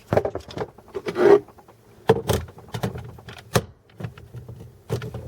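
Handling noises from a portable jump starter: a string of clicks, knocks and short scrapes as its port cover is opened and the unit is moved about.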